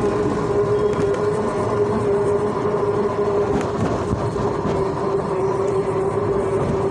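A small road vehicle carrying the recorder, running steadily along a paved road: a motor whine holding one pitch over a constant rumble and rattle of the ride.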